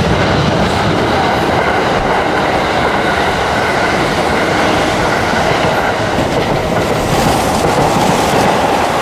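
Electric passenger train passing close at speed, a steady loud rolling rumble with wheels clattering over the rail joints.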